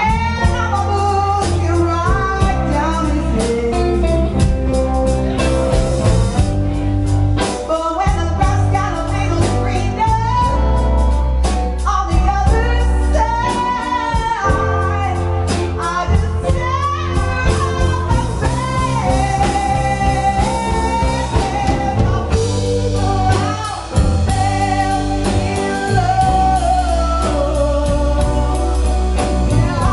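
Live band playing a song: a woman sings lead over electric bass, guitar and drum kit.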